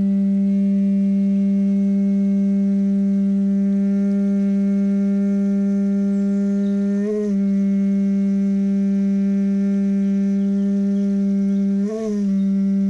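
Conch shell trumpet blown in one long, steady low note with many overtones. The note catches and wavers briefly twice, about seven and twelve seconds in, the kind of break that the player puts down to a lack of air pressure.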